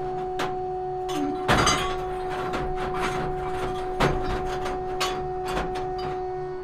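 Metal motorcycle parts knocking and clanking against the steel mesh grate of a sandblast cabinet as they are handled: a series of irregular sharp knocks, the loudest about a second and a half in and again about four seconds in. A steady hum runs underneath.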